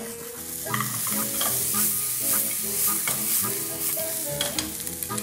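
Shrimp and chopped scallions sizzling in hot oil in a frying pan, stirred with chopsticks, with a few light clicks against the pan.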